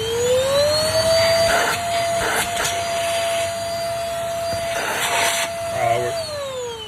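TMA 150 cordless stick vacuum's motor finishing its spin-up to a steady high whine, with a few brief surges of air noise, then switched off about six seconds in and winding down in pitch. It runs cleanly after its motor area was cleaned out of the dirt sucked in without the filter.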